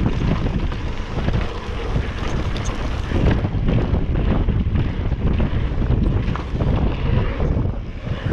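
Wind noise on the microphone of a mountain bike riding fast down a dirt trail, mixed with the tyres rolling over dirt and loose gravel and the bike knocking and rattling over bumps.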